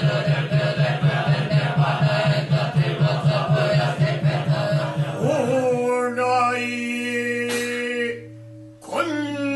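Unison sutra chanting on one steady pitch, kept in time by a wooden fish drum (mokugyo) struck about four times a second. About five and a half seconds in, the chanting and drum beats stop, and a single male voice chants long held notes, with a brief break near the end.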